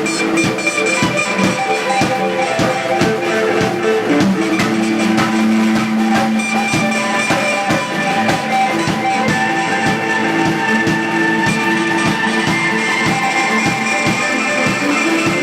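A live band playing, with a drum kit keeping a steady beat under guitar.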